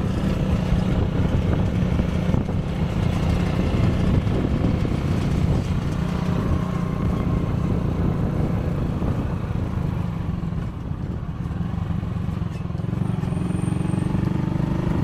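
Motorcycle riding at a steady speed: the engine runs with a steady low drone under an even rush of road and wind noise.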